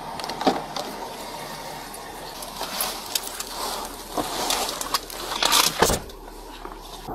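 Rustling and handling noises with a few sharp clunks as a car door is opened and someone gets into the driver's seat. The loudest clunk comes near the end.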